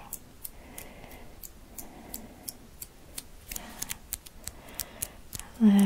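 Fingers plucking and rubbing close to the microphone in ASMR hand movements: a string of soft, crisp clicks, about three or four a second. A brief voiced sound comes in near the end.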